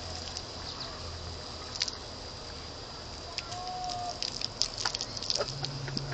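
Lawn sprinkler water jet spraying and pattering on dry grass, with many irregular small ticks and splashes, busier in the second half, as the dog snaps at the stream.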